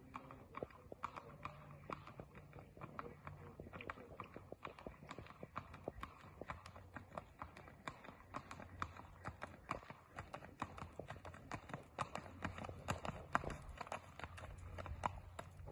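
Horse's hooves clip-clopping on an asphalt road in a quick, even rhythm. The hoofbeats grow louder toward the end as the horse comes closer.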